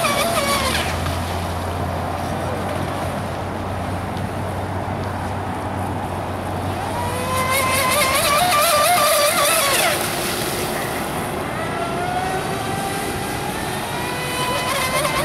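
Pro Boat Impulse RC speedboat's brushless electric motor whining at full speed, the pitch wavering as the hull skips over the chop. It fades early on, then rises in pitch and grows louder as the boat speeds past about seven seconds in, and again from about eleven seconds.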